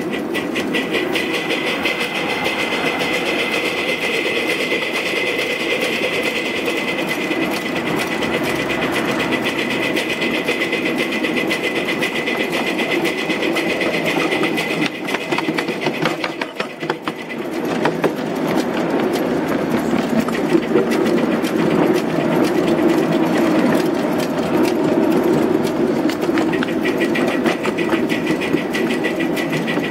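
Ride-on live steam 2-6-0 miniature locomotive running along the track, a rapid, even clatter of chuffs and wheel clicks with a steady high tone over it. The sound dips briefly about halfway through, then comes back a little louder.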